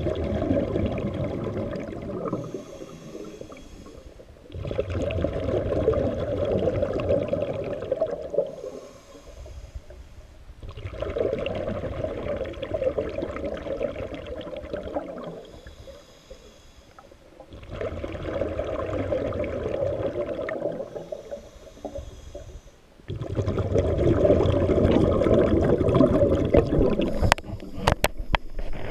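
A scuba diver breathing through a regulator underwater: long bubbling rumbles of exhaled air about every six seconds, five in all, with a quieter hissing inhale through the regulator between them. A few sharp clicks near the end.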